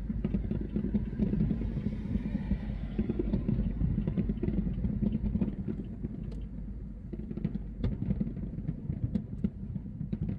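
Fireworks display heard as a continuous low rumble of booms, with scattered sharp crackles on top.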